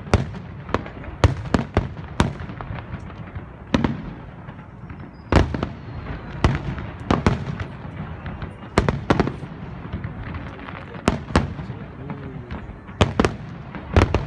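Fireworks display: aerial shells bursting in sharp bangs at uneven intervals, some in quick pairs, over a continuous low rumble.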